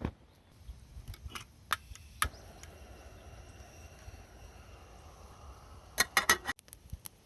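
Scattered light knocks and clicks, with a quick run of louder clicks about six seconds in, over a faint steady hiss.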